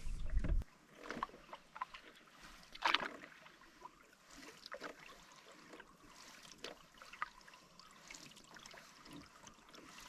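Canoe being paddled: irregular splashes and drips of paddle strokes in the water, the loudest about three seconds in. A low rumble at the start stops just under a second in.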